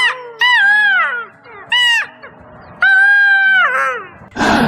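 A series of high, clear animal calls that arch up and down in pitch, with a short call and then a longer held call that falls away at the end, over background music.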